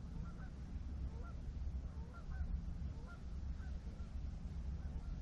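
Faint, repeated short honking bird calls, a few each second, over a steady low rumble.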